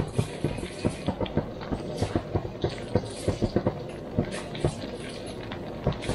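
Strawberry jam at a rolling boil after the sugar has gone in, stirred constantly with a wooden spoon in a stainless steel pot: thick bubbles pop irregularly, several times a second.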